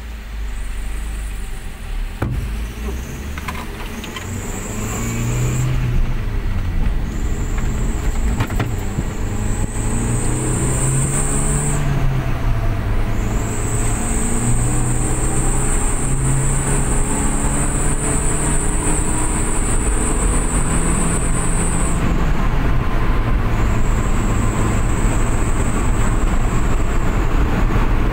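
A Suzuki New Carry pickup's 1.5-litre four-cylinder engine, heard from inside the cab, accelerating hard under a load of about 800 kg. The engine pitch climbs through the gears, with three gear changes where it drops and then rises again. A high whine sounds while the engine is under throttle and cuts out at each shift.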